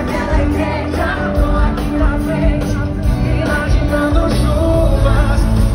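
Live sertanejo pop concert: a band playing through the stage PA with singing over it, loud and steady, heard from within the crowd on a phone recording.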